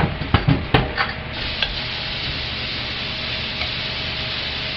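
A few quick knocks and clatters of kitchen utensils, then a steady sizzling of food frying in hot oil that sets in about a second in and keeps going.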